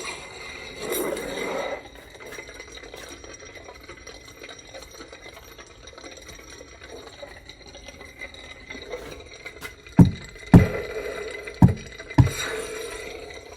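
Lightsaber sound font played through a Proffie board's speaker inside a Bendu Armory promethium hilt sleeve: a steady hum that swells with a swing near the start, then four sharp clash hits about ten to twelve seconds in, the loudest sounds.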